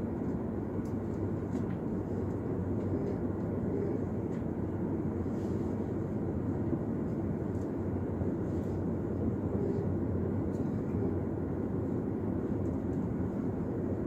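Steady rumble of an S-Bahn train running along the line, heard from inside the carriage, with faint light clicks here and there.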